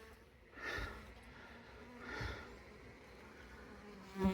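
A person's soft breathing: three short breaths about a second and a half apart.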